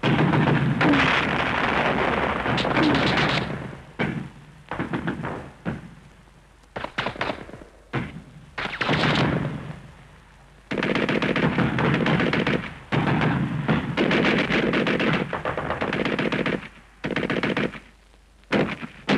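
Battle gunfire: repeated bursts of rapid machine-gun fire. The longest bursts come at the start and in the middle, with shorter bursts and brief pauses between them.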